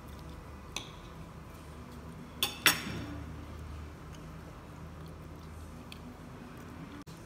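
A metal fork clinking against a ceramic plate: a light tap about a second in, then two sharp clinks close together about two and a half seconds in. A low steady hum runs underneath.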